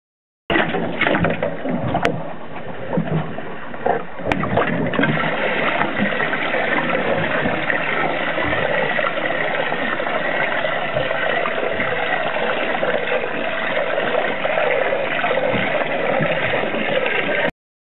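Water churning and gurgling, as around a fishing boat's hull, a steady rushing noise with a couple of sharp clicks early on. It starts suddenly about half a second in and cuts off abruptly near the end.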